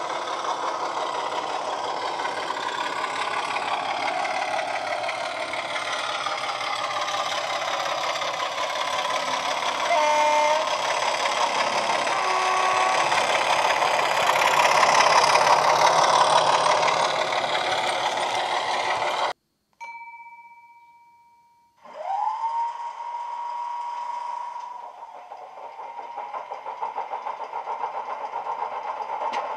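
DCC sound decoder playing a BR Class 25 diesel sound file through a small passive radiator speaker in an OO-gauge model: the engine running under power with two short horn blasts around 10 and 12 seconds in. After a sudden cut there is a faint steady tone, then a rising tone that levels off, and from about 25 seconds in a pulsing engine idle.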